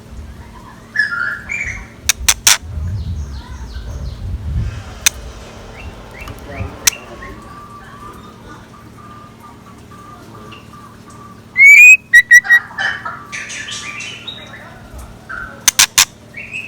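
Chèo lửa decoy bird calling: short chirps and gliding whistled notes. A very loud burst of calls comes about 12 seconds in, among several sharp clicks.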